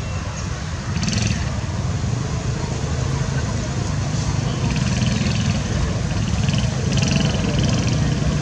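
A vehicle engine running steadily, a low rumble that grows a little louder about a second in, with brief higher hissing now and then.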